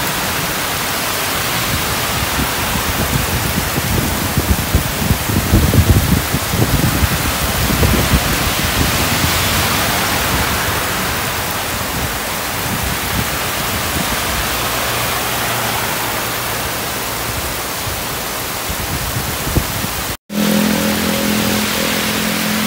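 Heavy downpour hissing steadily on a road, with car tyres sizzling through standing water and low irregular rumbles a few seconds in. After a brief cut-out near the end, a steady low engine hum from a passing car joins the rain.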